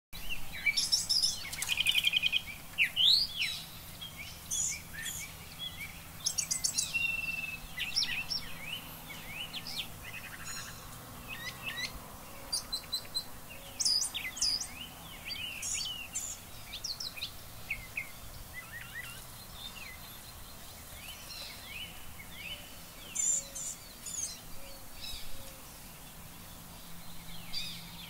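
Several songbirds chirping and singing in a tree in the morning: a busy mix of short high chirps, quick trills of evenly spaced notes and whistled slurs, some loud and close, others fainter. The low end is filtered out, so street traffic is barely heard.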